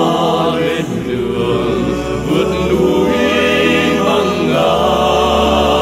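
Background music: a choir singing a Vietnamese song with instrumental accompaniment, on long held chords.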